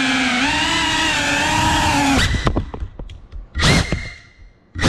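Cinewhoop FPV drone's brushless motors and ducted propellers whining, the pitch rising and falling with the throttle. The whine cuts off suddenly about two seconds in, followed by small knocks and then two short loud bursts about a second apart as the drone comes down.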